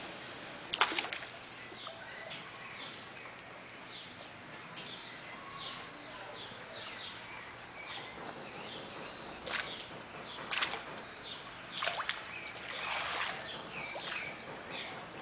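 Small birds chirping over and over, with a few short splashy noises from a rottweiler puppy lapping and mouthing at the pool water, most of them in the second half.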